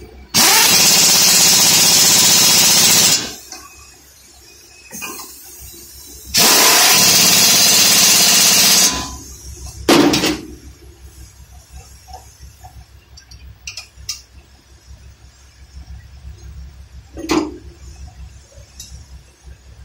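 Pneumatic impact wrench run in two bursts of about three seconds each on the bolts of a front brake caliper, with a new disc fitted. A couple of sharp metal clinks follow later.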